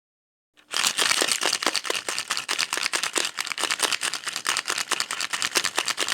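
Camera shutters clicking in a rapid, continuous run, about ten clicks a second, starting abruptly about half a second in.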